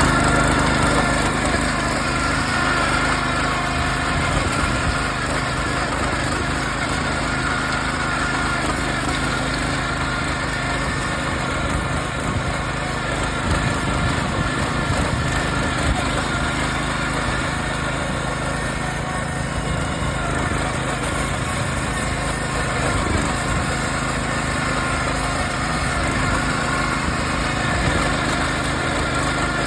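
Small engine of a motor hoe (rotary tiller) running steadily while tilling garden soil.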